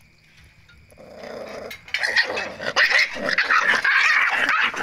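Puppies growling and yelping as they jostle at a shared food bowl: a low growl about a second in, then loud, high-pitched yelping from about two seconds in.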